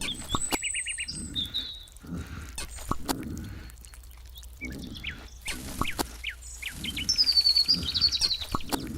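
Songbirds chirping and trilling, with quick whistled glides, over irregular sharp clicks and duller low knocking or scraping noises.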